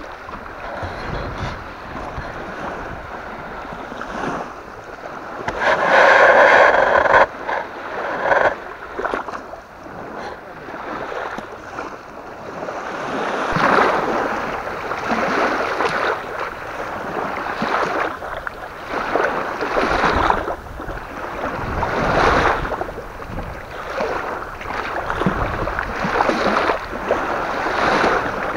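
Small wind-driven waves lapping and washing at the shore, swelling and falling every second or two, with a louder rush about six seconds in.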